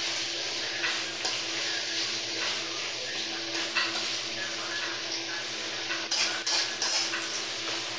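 Chopped meat frying in a small wok: a steady sizzle, with a spatula scraping and knocking against the pan as the meat is stirred. The knocks come thickest about six to seven seconds in.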